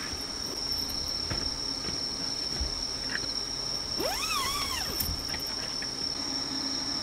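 Night insects, crickets by their sound, keep up one steady, unbroken high-pitched trill. About four seconds in, a single short whine rises, wavers and falls, lasting about a second.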